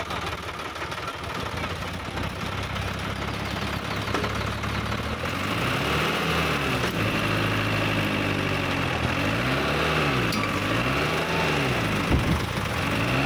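Sonalika DI-50 RX tractor's diesel engine running, then from about five seconds in revving up and down over and over, its pitch rising and falling again and again.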